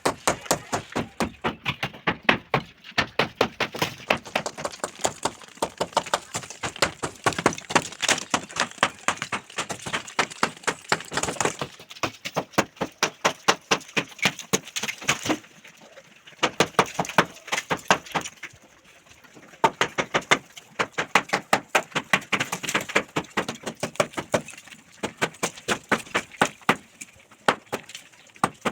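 Rapid, repeated hammer blows on a construction site, several sharp strikes a second, with a break of a second or so about two-thirds through.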